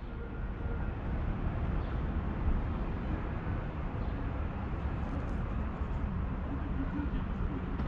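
Outdoor city ambience: a steady low rumble of distant traffic.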